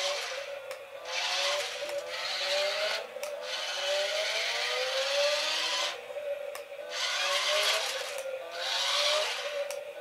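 Small electric drive motors and gearboxes of a 4WD toy RC crawler whining as it drives, the pitch rising again and again with each burst of throttle and stopping briefly about three and six seconds in.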